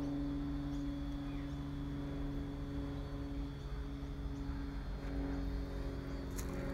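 Steady mechanical drone: a constant low hum over a low rumble, unchanging throughout.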